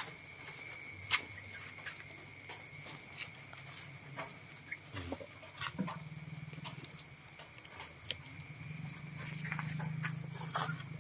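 Broiler chickens in a netted pen: scattered soft taps and scratches with a few faint short chirps, over a steady low hum and a steady high tone.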